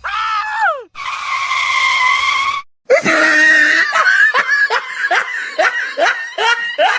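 A high-pitched voice: a short falling cry, a held note of about a second and a half, then a run of short cries that rise and fall about three times a second, like laughter.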